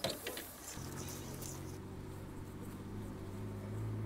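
Steady low drone of a moving vehicle heard from inside it, with a few short clicks near the start.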